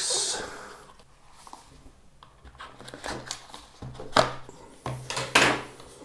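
A small cardboard product box being handled: a rubbing scrape at first, then after a quiet moment a series of short sharp taps and scrapes of fingers on the cardboard, strongest in the last two seconds as the fingers pick at the box's end flap.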